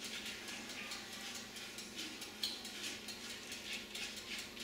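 Sugar-and-water syrup bubbling in a frying pan as the sugar melts, a fine irregular crackle of small ticks, while a silicone spatula stirs it.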